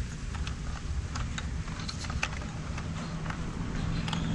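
Scattered light clicks and rattles of e-bike wiring and plastic connectors being handled and shifted in the frame's battery compartment. A low steady hum comes in about three seconds in.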